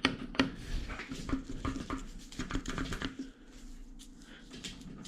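Irregular light clicks and taps of small metal parts of a hydraulic pilot joystick valve being handled and pushed on the bench, thinning out after about three seconds.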